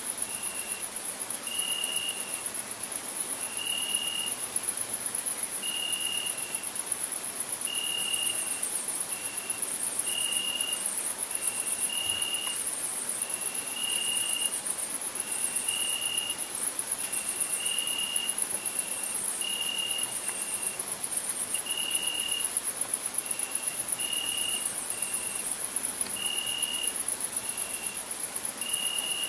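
Crickets chirping: a steady, very high, finely pulsing trill. Over it a lower short piping note repeats about once every second or two, alternating longer and shorter notes.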